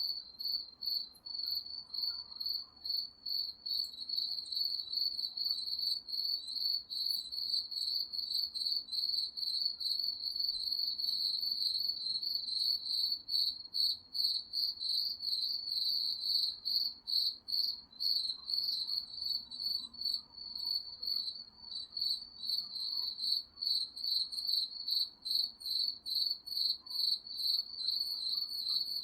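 Crickets chirping: a continuous high-pitched pulsing trill that breaks briefly a couple of times a second.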